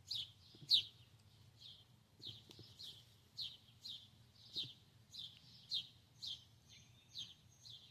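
A bird chirping over and over, short falling chirps about twice a second.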